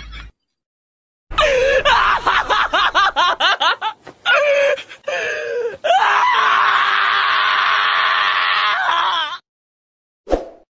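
A man screaming in short bursts, then one long, loud held scream that cuts off about nine seconds in. A short sound follows near the end.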